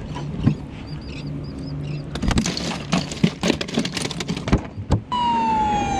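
Plastic cooler lid lifted and a caught fish put in on the ice: a clatter of sharp clicks and knocks for a few seconds. Near the end a wailing tone starts abruptly, gliding down and then back up in pitch like a siren.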